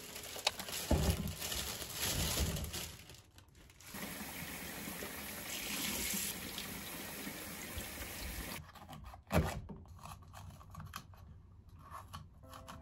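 Plastic bag of green peppers rustling and crinkling, then a kitchen tap running steadily into a stainless-steel sink for about four seconds before it shuts off. A sharp knock follows, then light taps of a knife on a wooden cutting board.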